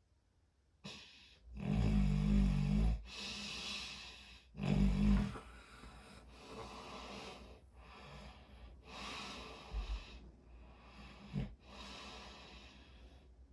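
Snoring in sleep, starting about a second in: two loud, low snores of about a second each, then a run of softer, breathy snoring breaths every second or two.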